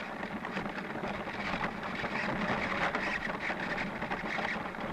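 Durafly Tundra RC plane's electric motor and propeller running steadily, picked up by the onboard camera as a continuous whirring rush of motor and air noise.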